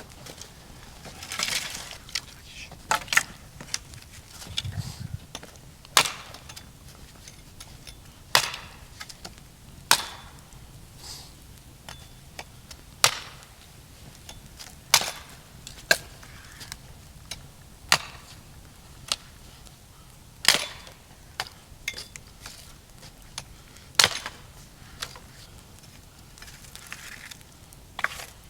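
Wood being chopped: sharp, irregular strikes about one to three seconds apart, with lighter knocks in between.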